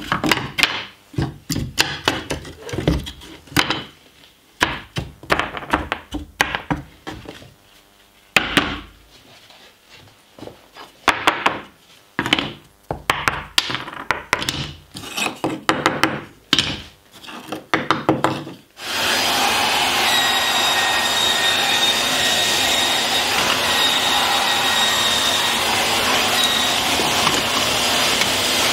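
Film-faced plywood parts being broken out of a CNC-milled sheet and handled on a workbench, with irregular wooden knocks and clatter. About two-thirds of the way in, a vacuum cleaner starts and runs steadily with a high whine, sucking sawdust off the bench.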